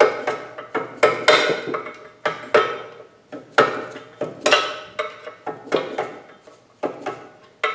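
Sharp metal-on-metal taps with a short ringing after each, about two a second at an uneven pace: a long screwdriver being tapped against a steel part of a Brinly three-point plow to work it loose.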